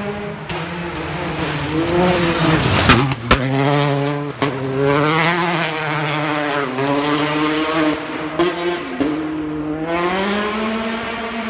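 Rally car engine revving hard, its pitch climbing and dropping again and again through gear changes and lifts. Two sharp cracks come about three seconds in.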